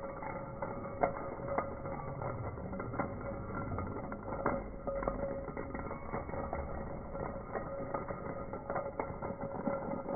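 A line of dominoes toppling one after another in a chain reaction: a steady run of small, irregular clicks and clatters.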